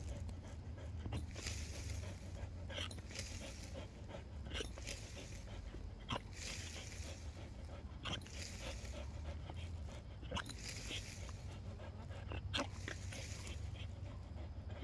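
A pit bull panting hard, in a run of short, hissy breaths with a steady low hum underneath.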